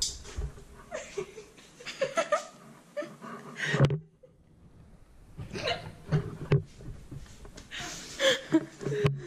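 Teenage girls laughing in short, choppy bursts, breaking off briefly about four seconds in.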